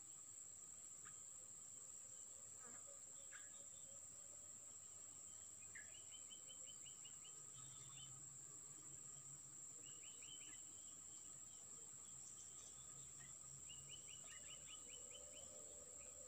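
Near silence, apart from a faint steady high-pitched insect trill. Three short runs of faint rapid chirps come in, about six, ten and fourteen seconds in.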